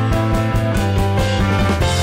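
Music with a steady drum beat over bass and sustained pitched notes.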